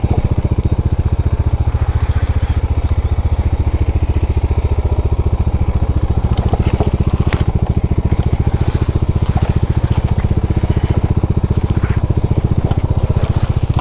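Motorcycle engine running at low, steady revs with an even pulse, holding the bike back on a steep rocky descent. A few sharp knocks and crunches come from the tyres on loose rock around the middle.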